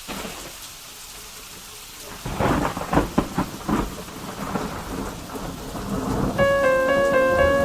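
Steady rain with a clap of thunder about two seconds in, crackling and rumbling for a couple of seconds before dying back to the rain. Near the end a keyboard melody of high, bell-like notes enters over the rain.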